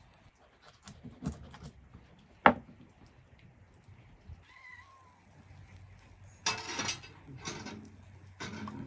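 Knife and hands working small raw fish on a wooden board: scattered knocks, the loudest a sharp one about two and a half seconds in, and short scraping bursts in the last few seconds. A short animal call rises and falls about five seconds in.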